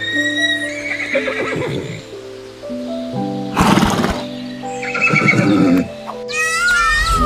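Horse whinnying several times over background music.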